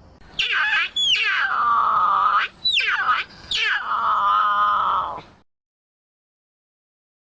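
Cougar calling: four loud, screechy calls, each starting high and sliding down in pitch before being held.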